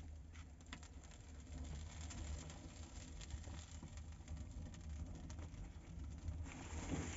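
Wood fire burning in a clay tandoor oven: a steady low rumble of flames with scattered crackles, and a louder rush of noise near the end.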